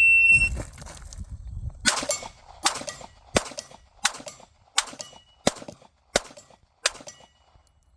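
A shot timer beeps once, then a pistol fires eight quick shots about 0.7 seconds apart at a small steel target, with a metallic ring from the steel plate lingering after the shots.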